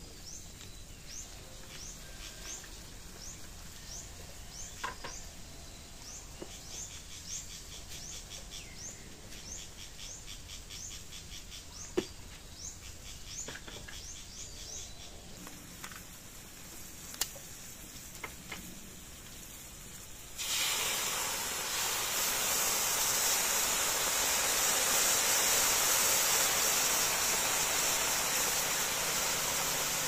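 Food frying in a wok over a wood fire, breaking into a loud, steady sizzle suddenly about twenty seconds in. Before that, a bird chirps in a quick series of short, high, falling calls, with a couple of sharp clicks.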